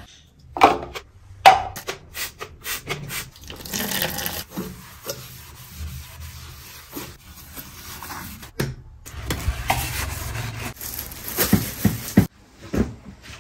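Scrubbing a bathroom surface by hand: repeated rough rubbing strokes, with two sharp knocks in the first second and a half.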